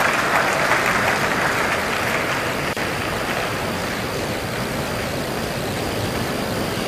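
Arena crowd applauding after a table tennis point. The clapping is strongest for the first couple of seconds, then thins into a steady hall murmur.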